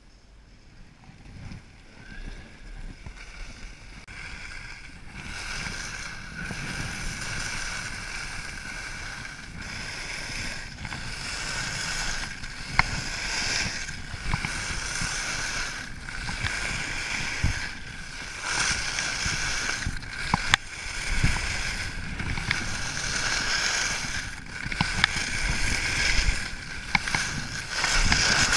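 Rossignol carving skis hissing and scraping over groomed corduroy snow, with wind buffeting the camera microphone. Quiet at first, then louder from about five seconds in as speed builds.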